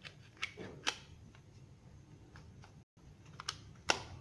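Scattered plastic clicks and taps from handling a Panasonic KX-TGK210 cordless phone handset: its back cover being fitted back on and its keypad buttons pressed. A few quiet clicks come near the start, and more near the end, the loudest just before the end.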